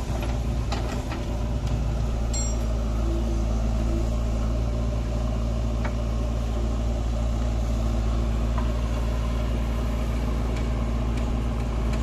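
JCB 3DX backhoe loader's diesel engine running steadily as its backhoe bucket digs into a soil pile, with a few short knocks from the arm and bucket, mostly in the first few seconds.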